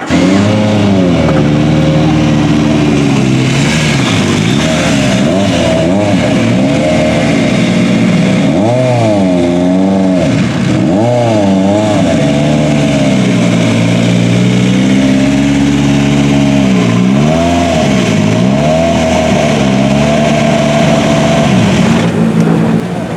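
Rally car engine revving hard and continuously, its pitch climbing and dropping again and again through gear changes and throttle lifts.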